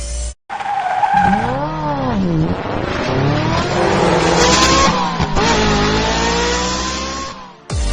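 Sports car engine revving, its pitch swinging up and down and then climbing steadily as it accelerates. There is a brief drop about five seconds in, like a gear change, before it climbs again and cuts off just before the end.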